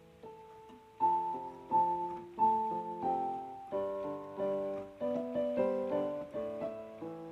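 Background music: piano playing a melody over chords, the notes struck and left to fade.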